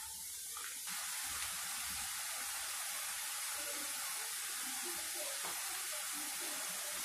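Boondi frying: drops of gram-flour batter falling through a slotted ladle into hot oil and sizzling steadily in the pan, with light crackling. The sizzle gets a little louder about a second in.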